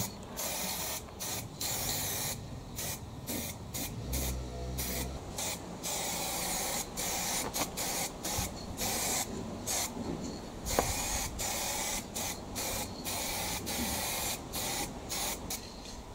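Paint spray hissing from a nozzle in many short bursts, each under a second, stopping and starting. It is typical of spray painting parts during a restoration. A single sharp tick comes about two-thirds of the way through.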